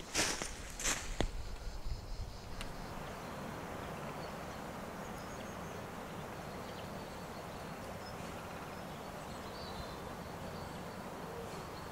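Footsteps crunching through dry leaf litter for the first couple of seconds, then the steady rush of a small forest stream, with faint high chirps over it.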